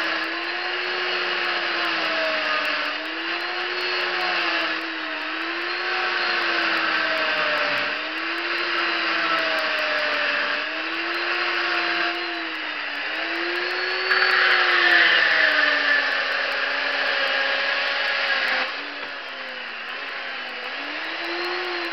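Chainsaw cutting into a wooden block, its engine pitch rising and falling again and again as the throttle is worked under load while the chain chews through the wood. The cut is loudest about two-thirds of the way in, then the saw drops to a lighter, quieter running near the end.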